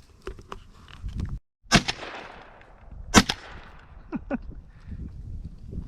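Two 12-gauge shotgun shots, from a Weatherby Element, about a second and a half apart, the second louder, each dying away in a long echo. A few light ticks come before the first shot.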